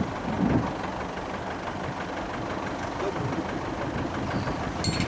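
Farm tractor engine running steadily while it pulls a PTO-driven bed-forming machine across tilled soil, a continuous mechanical noise with a fast, even ticking.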